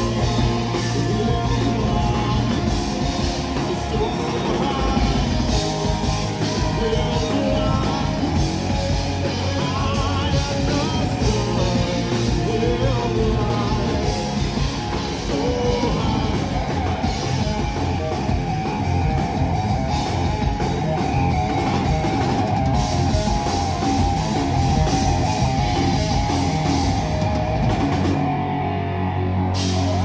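Live rock band playing: distorted electric guitars, bass guitar and drum kit with a lead singer. Near the end the cymbals stop and a low chord is held.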